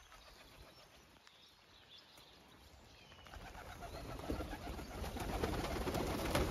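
A flock of white doves taking off, their wings flapping and clapping. The flapping starts about halfway through and builds to its loudest near the end.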